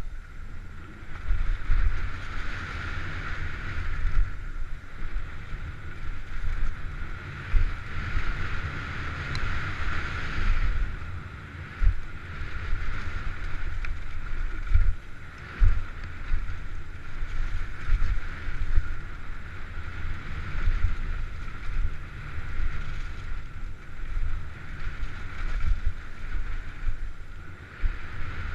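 Steady rushing noise, swelling and fading, under a gusty low rumble of wind buffeting the microphone.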